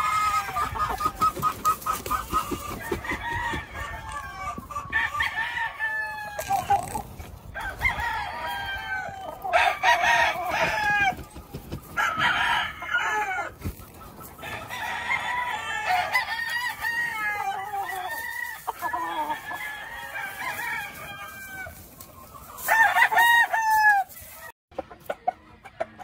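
Gamecock roosters crowing one after another and over each other, with clucking between the crows; the loudest crows come about ten, twelve and twenty-three seconds in.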